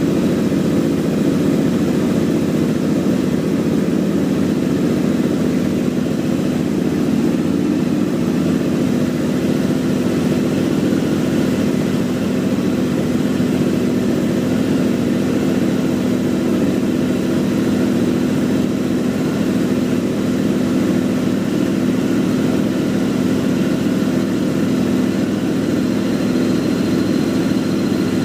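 KTM 990 Adventure R's V-twin engine idling steadily, with the strange noise that appeared after a Rekluse automatic clutch was fitted. A faint high whine comes in near the end.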